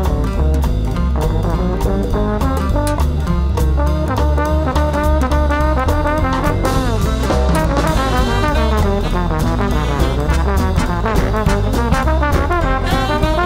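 Big-band jazz: a brass section of trombones and trumpets playing fast, moving lines over a drum kit with steady cymbal strokes.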